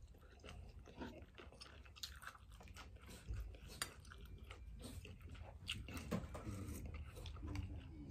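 A person chewing a mouthful of rice noodles and meatballs, with small scattered clicks of a spoon against the soup bowl.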